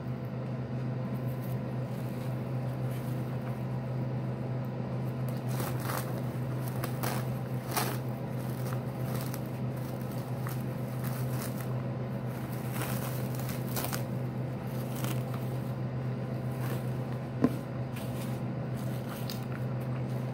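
Plastic cling wrap crinkling and tearing in short, scattered crackles as it is peeled off a sandwich, over a steady background hum. One sharp click late on.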